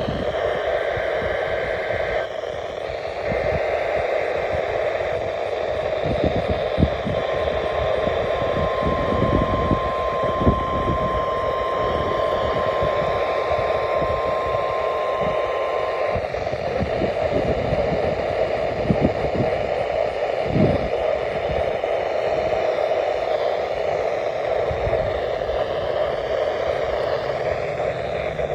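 NOAA Weather Radio required weekly test heard through radio static: two short bursts of the SAME digital header's buzzy data tones, then the single steady warning alarm tone held for about nine seconds, after which only the steady hiss remains.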